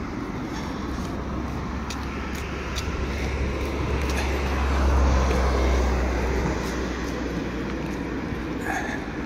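Deep rumble of passing traffic, swelling to its loudest about halfway through and then fading.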